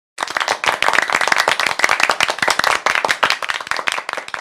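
Applause: many hands clapping, starting abruptly and thinning out toward the end.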